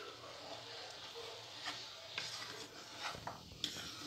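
Spoon stirring wet rice with carrots and peas in a pan: a soft scraping, with a few light taps of the spoon against the pan.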